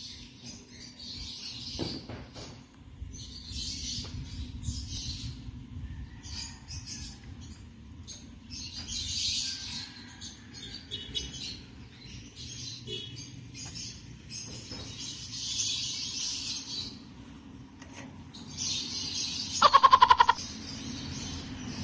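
Birds chirping in repeated bursts about a second long, over a steady low rumble. Near the end comes a loud, short buzzing tone, the loudest sound.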